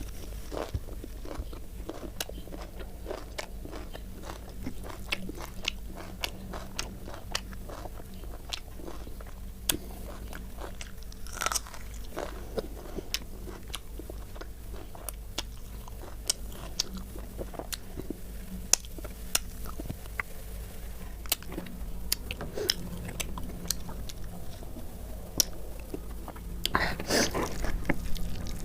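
Close-up chewing and wet mouth sounds of a person eating rice with chicken gravy, with many small clicks and occasional crunchy bites. Louder bites come about eleven seconds in and near the end.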